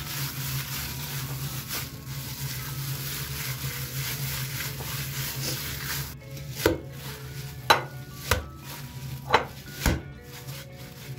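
A plastic-gloved hand kneading and squishing a raw minced-meat köfte mixture in a plastic bowl, over a steady low hum. In the second half the lump of meat is slapped down into the bowl five times with sharp smacks.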